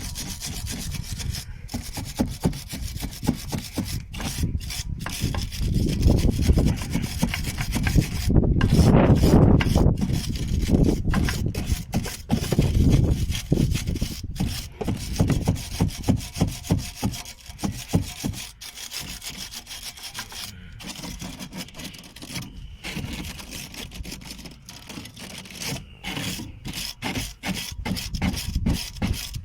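A hand wire brush scrubbing back and forth in quick strokes over a car's front anti-roll bar link, cleaning it. The scrubbing is heaviest about a third of the way in.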